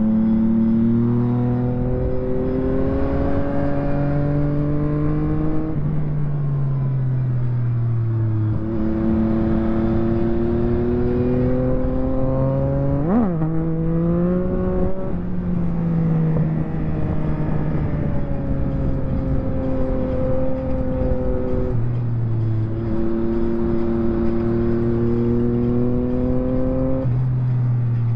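2023 Yamaha MT-09 SP inline-triple engine running through a full Akrapovic race exhaust while riding. The engine pulls up through the revs in long climbs, drops back several times as the throttle closes, and gives one short sharp rev spike about halfway through.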